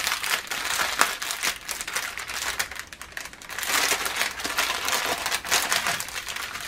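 Small plastic bags of diamond-painting drills being handled and shuffled, a continuous crinkling of plastic with many short crackles.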